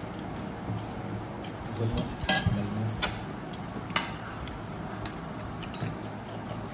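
Crockery and a serving spoon clinking at a dinner table: a few sharp, separate clinks, about a second apart in the middle, over low room noise.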